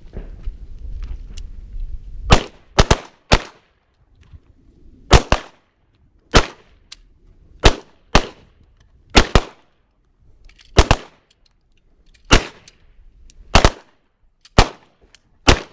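Pistol shots from several shooters firing at once: about fifteen sharp reports beginning some two seconds in, unevenly spaced, some in quick pairs.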